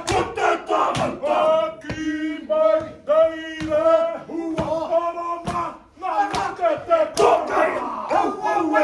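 A group of men performing a haka: loud chanted lines and shouts in unison, with sharp slaps running through the chant.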